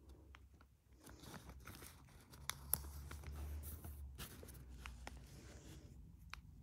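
Faint rustling of a glossy paper catalogue being handled, fingers sliding over and gripping its pages, with a few soft ticks.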